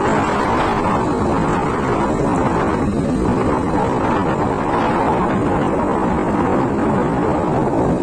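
Steady engine and road noise of a motor scooter being ridden.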